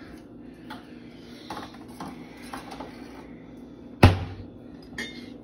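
Small clinks and knocks of things being handled in a kitchen cupboard, then a wooden cabinet door shutting with one loud knock about four seconds in, followed a second later by a lighter click.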